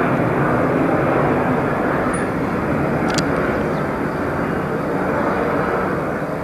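Steady rumbling roar from the sky like a jet engine's turbine, easing slightly in level; its source is hidden by cloud. A short high click about three seconds in.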